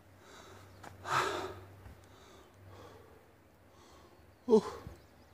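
A hiker breathing hard from the exertion of a steep climb: a loud breathy exhale about a second in, then a sharper, voiced breath that falls in pitch near the end.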